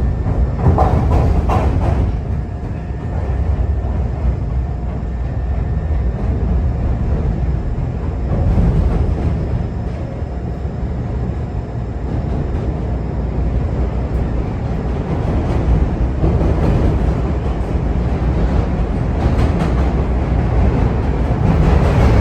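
Chicago CTA rapid-transit train running along the rails: a steady rumble of wheels and running gear that swells and eases every few seconds, with a faint steady whine for a few seconds near the start.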